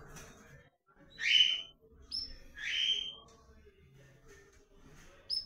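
Ultramarine grosbeak (azulão) calling: a few short, sharp notes that drop in pitch, with pauses of up to two seconds between them.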